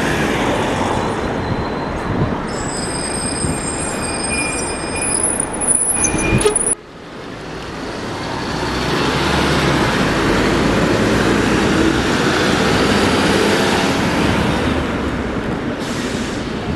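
Double-decker buses passing close on a city street, with engine and tyre noise. In the first few seconds a high-pitched squeal rings out, such as brakes make as a bus slows. After a sudden cut, a second double-decker swings past close by, swelling loudest in the middle and fading away near the end.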